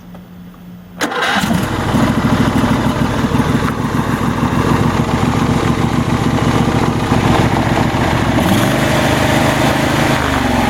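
The 26 hp Briggs & Stratton V-twin engine of a Troy-Bilt GTX2654 riding mower starts on the key about a second in and runs steadily. It is starting again after a blown 25-amp fuse was replaced. Its note changes about 8.5 seconds in.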